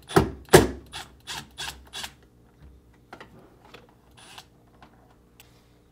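Milwaukee cordless driver backing out the Phillips screws that hold a refrigerator's plastic pivot block, in a run of short clicking mechanical bursts, about three a second and loudest in the first two seconds, then fainter and more scattered.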